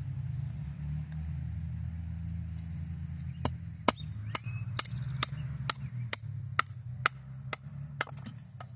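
Repeated sharp strikes, about two a second, starting about three and a half seconds in, over a steady low hum.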